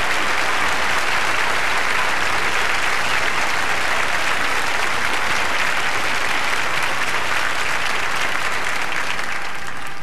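Large audience applauding steadily, the clapping thinning out near the end.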